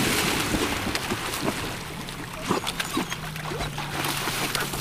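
Dogs splashing into lake water: a heavy splash as they plunge in, then lighter sloshing and splashing as one swims and the other wades.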